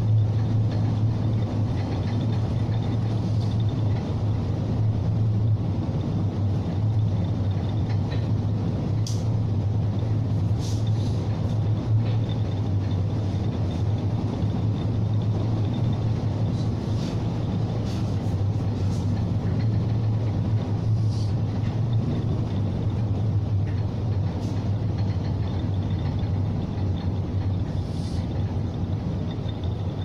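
Steady low drone of a bulk carrier under way: the ship's engine and machinery hum, with a wash of wind and sea noise over it and a few faint short hisses now and then.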